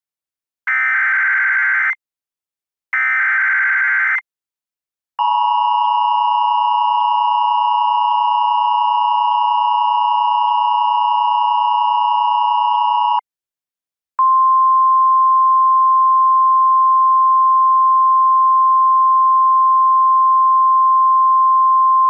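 Emergency Alert System tones from a software EAS encoder. First come the last two of three screechy SAME digital header bursts, each about a second and a quarter long. Then the two-tone EAS attention signal sounds for about eight seconds, and after a one-second gap a steady single-tone weather-radio warning alarm follows for about eight seconds.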